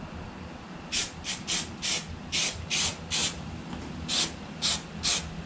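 Aerosol can of spray adhesive giving about ten short hissing bursts, spraying a second coat of glue onto the vinyl edge.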